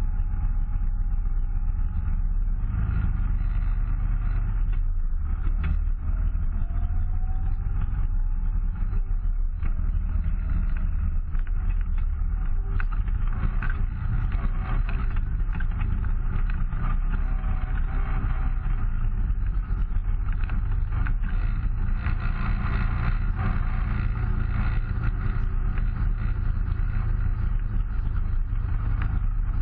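Yamaha Wolverine side-by-side's engine running steadily at low trail speed, heard from on board, with occasional knocks and rattles as it travels over a dirt trail.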